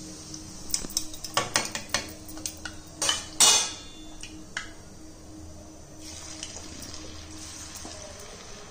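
Wire-mesh skimmer clattering and scraping against the rim of a kadai of hot oil as fried chegodis are lifted out and drained, several sharp clinks with the loudest about three and a half seconds in. From about six seconds in, a steady sizzle of oil deep-frying dough rings.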